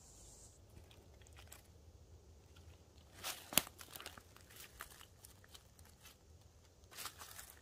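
Dry leaf litter crackling and rustling under a hand picking black trumpet mushrooms, in scattered short crunches, the loudest about three and a half seconds in.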